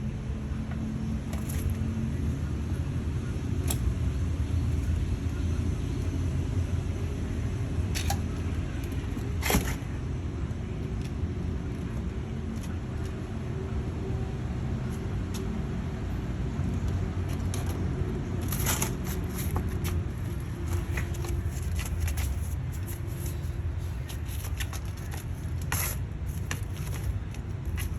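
Steady low rumble with scattered sharp clicks and crackles, more of them near the end.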